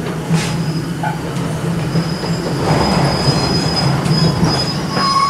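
Excursion train rolling along the track, heard from aboard a passenger car: a steady rumble of wheels on rail, with a thin high wheel squeal joining about two seconds in.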